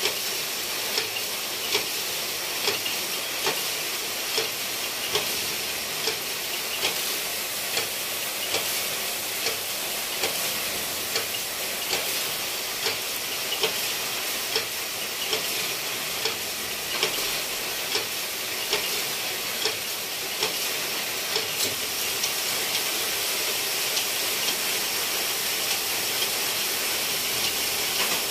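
Sock-knitting machines running: a steady mechanical hiss with a sharp, regular click a little more than once a second.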